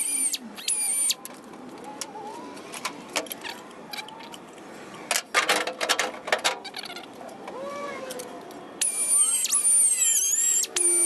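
Spot weld cutter in an electric drill squealing as it bites into the steel body panel, in a short stretch at the start and again for the last couple of seconds. A quick run of sharp clacks comes about halfway through.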